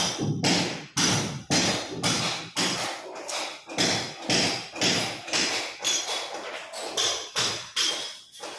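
Repeated hammer blows, about two to three a second with a few uneven pauses, each a sharp knock with a short ringing tail.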